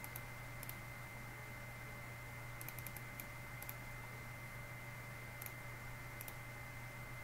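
Scattered soft clicks of a computer mouse and keyboard as the repair software is worked, some coming in quick pairs. Under them runs a steady low electrical hum with a faint high steady tone.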